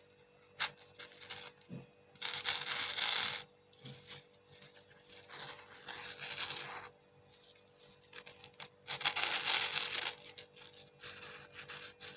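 Plastic candy wrappers being torn open and crinkled in about four bursts of rustling, with light clicks and taps between them.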